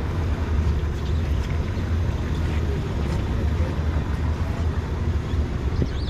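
Steady low rumble of a sportfishing boat's machinery, heard from the open deck, with faint voices in the background.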